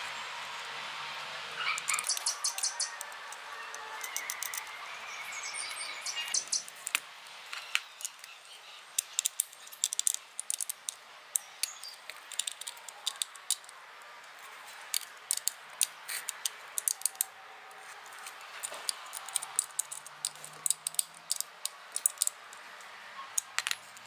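Scattered sharp clicks and light clinks of small metal parts being handled and fitted, coming in irregular clusters over a faint steady background.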